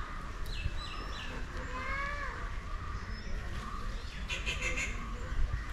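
Birds calling in the surrounding trees: short whistled chirps and rising-and-falling notes, with a brief harsh rattling call about four and a half seconds in.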